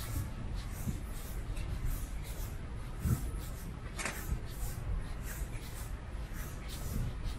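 Footsteps walking at a steady pace, about two steps a second, each a short scuff, over a steady low outdoor rumble. A sharper tick comes about four seconds in.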